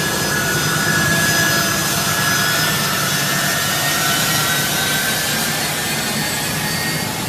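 Boeing C-17 Globemaster III's turbofan jet engines running as the transport taxis, a loud steady rush with high whining tones that slowly fall in pitch.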